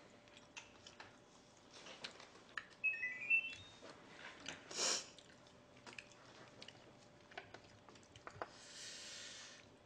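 Eating sounds: quiet chewing and small clicks of chopsticks and dishes, with a short rising run of electronic beeps about three seconds in and a brief louder noise near five seconds.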